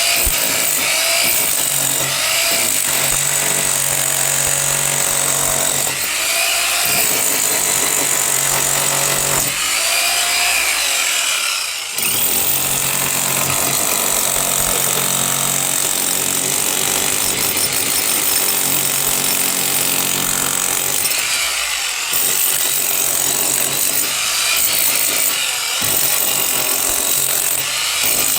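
A power tool running continuously, with its pitch bending and recovering as the load changes and a brief drop about twelve seconds in.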